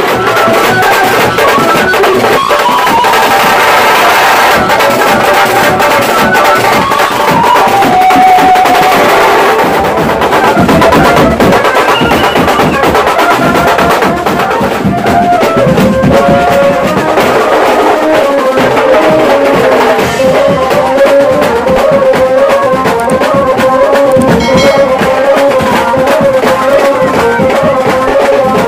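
Mumbai banjo-party band playing: fast, dense drumming on sticked hand drums and a drum kit under a wandering melody line, which settles into a long, wavering note in the second half.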